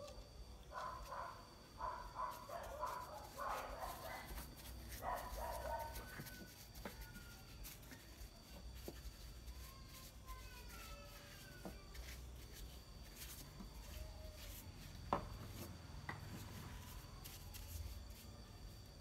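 Short, high whining animal calls in the first six seconds, then a few fainter ones; a single sharp knock about fifteen seconds in.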